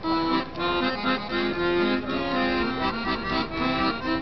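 Piano accordion playing a tune, with steady held notes that change every fraction of a second.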